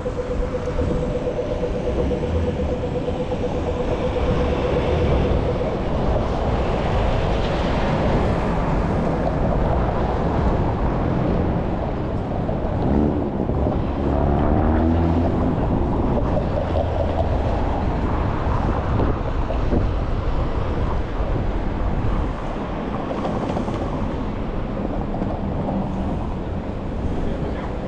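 Busy city-street din: cars and a van passing at an intersection, with wind on the microphone. A steady hum fades out about six seconds in.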